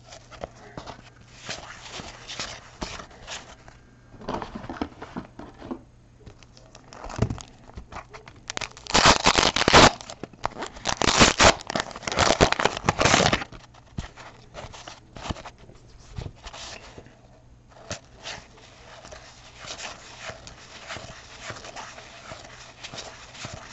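Baseball trading cards handled by hand, with the cards sliding and flicking against each other in light rustles and clicks. From about nine seconds in, a louder crinkling and tearing lasts about four seconds, which fits a wax-paper card pack wrapper being opened.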